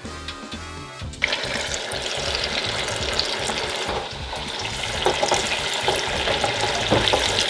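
Hot oil in an electric deep fat fryer sizzling and bubbling hard around a batter-coated lump of spaghetti bolognese, with dense crackling pops. It starts suddenly about a second in. Background music is heard before that.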